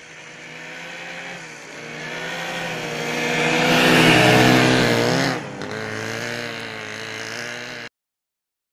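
Engine of a homemade snowmobile built from a motorcycle with a rear track, running as it approaches and drives past close by. It grows louder to a peak about four seconds in, then drops sharply in pitch as it passes and carries on steadily, before the sound cuts off suddenly near the end.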